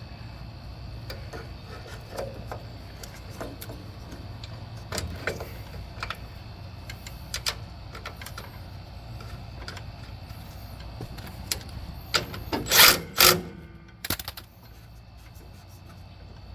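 Scattered clicks and clinks of hand tools and metal parts being worked on a lawn tractor, with two loud short scraping bursts about three-quarters of the way in, over a steady low hum.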